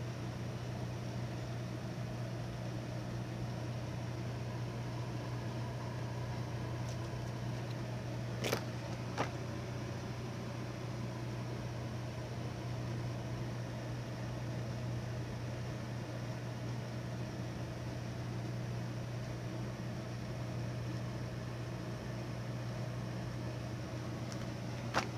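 Steady low machine hum, with two sharp clicks about eight and a half seconds in and another near the end.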